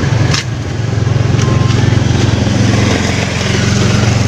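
A motorcycle engine idling steadily, with a sharp click about half a second in.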